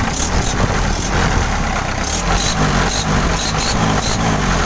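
Isuzu 4JG2 four-cylinder diesel engine idling steadily, running again after its fuel filter was replaced and the fuel line primed: the hard-starting fault is cured.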